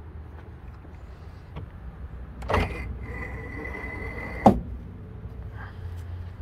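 Chicken coop slide door being opened: a clack, then a steady scraping tone for about two seconds as it slides, ending in a sharp knock.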